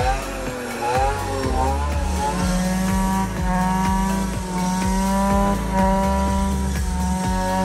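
Brush cutter fitted with a blade made from a brake disc, its small engine running at high revs as it cuts through weeds and leafy undergrowth. The revs waver up and down at first, then hold steady from about two seconds in. Background music with a steady beat plays under it.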